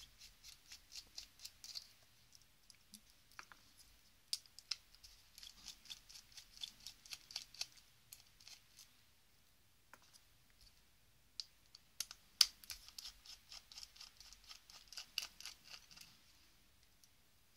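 Faint runs of quick clicks, several a second, as a T8 Torx precision screwdriver turns small screws out of an old BlackBerry's circuit board. Three runs, with short quiet pauses while the screwdriver moves to the next screw.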